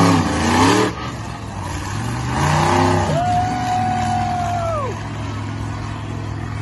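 Monster truck engine revving hard in two bursts as the truck climbs onto and crashes over cars. After the second burst, a high steady whine holds for under two seconds and then falls away, over the engine's steady running.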